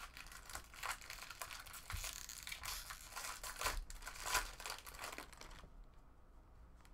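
Foil wrapper of a trading-card pack being torn open and crinkled by hand, a run of irregular crackles that stops about a second before the end.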